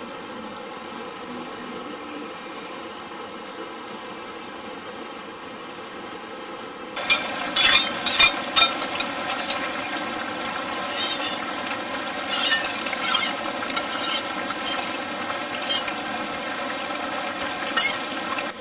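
Food frying, a steady sizzle with frequent crackles, starting abruptly about seven seconds in after a quieter steady background.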